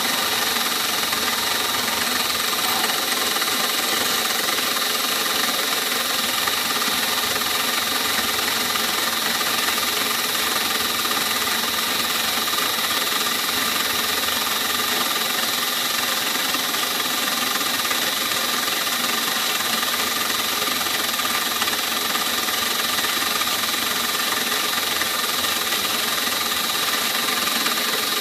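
CNC milling machine spindle running with a small end mill cutting a clear plastic block, a finishing pass cleaning up the rough cut. A steady high whine over an even hiss, unchanged throughout.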